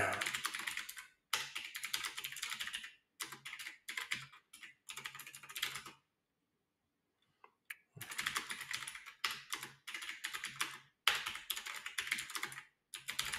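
Typing on a computer keyboard: quick runs of keystrokes, with a pause of about two seconds midway broken by a single click, then more typing.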